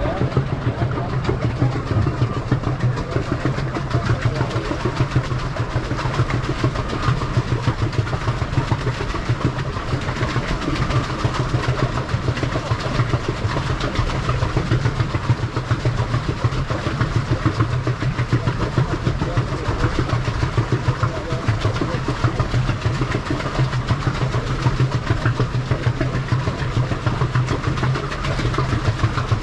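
Pedal boat under way: a steady churning and splashing of water from its pedal-driven paddle wheel, with a constant low rumble.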